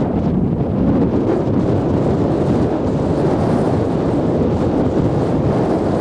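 Strong sea wind buffeting the microphone as a steady, loud low rumble, over the wash of waves breaking on a sandy beach.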